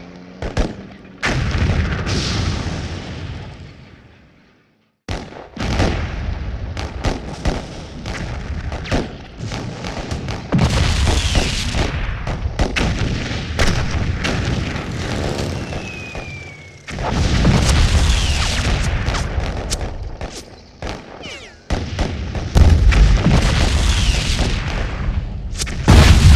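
Home-made battle sound effects: deep explosion booms mixed with many sharp gunshot cracks. The sound fades to silence about four seconds in, then starts again in dense waves. A short falling whistle comes about halfway through.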